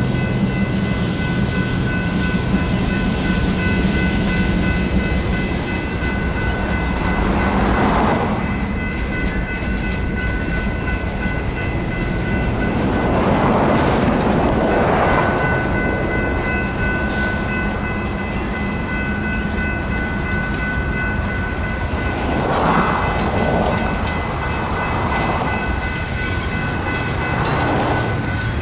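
Freight cars rumbling and clacking over the crossing while the crossing signals' GS Type 3 electronic bells ring the whole time. Road vehicles pass close by several times, the loudest about 8 and 14 seconds in.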